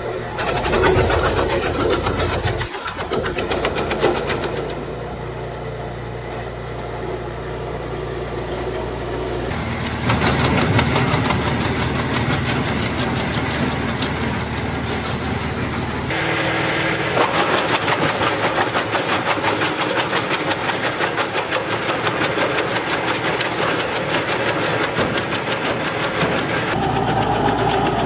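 Wood chippers running and chipping branches, in several cut-together clips: a steady engine drone under a dense, fast crackle of wood being chewed up. The sound changes abruptly from one clip to the next.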